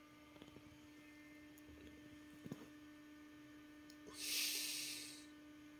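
A long breath out, a smooth hiss that swells about four seconds in and fades over about a second, over a steady low electrical hum, with a few faint soft clicks earlier.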